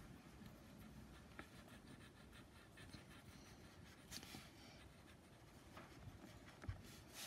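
Faint scratching of a black marker pen dragged across paper in short strokes, with a soft knock near the end.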